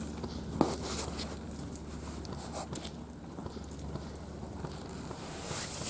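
Footsteps and crackling through undergrowth as a player moves on, over a steady low rumble, with one sharp click a little over half a second in.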